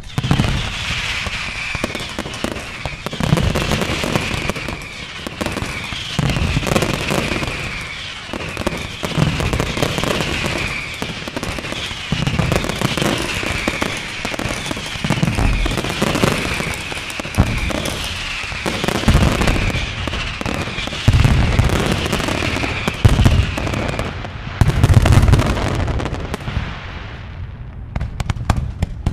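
Aerial fireworks display: dense continuous crackling, with heavy shell bursts booming every two to three seconds and a high falling chirp repeating about once a second. The crackle thins out near the end.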